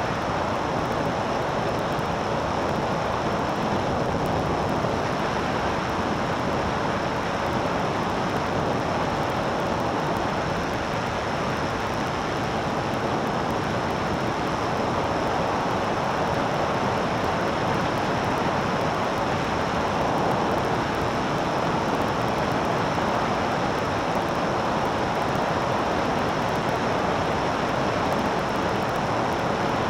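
Steady rush of wind and engine noise from a light aircraft in level cruise, unchanging throughout.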